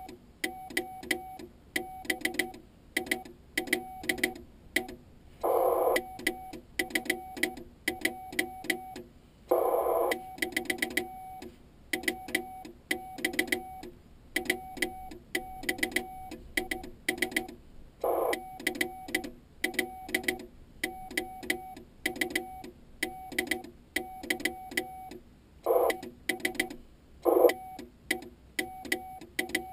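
Morse code sent by hand on a homemade key: the Icom IC-701 transceiver's tone beeps out dots and dashes, and the key's contacts click sharply with each one. A few short, louder bursts of noise break in, about six and ten seconds in and near the end.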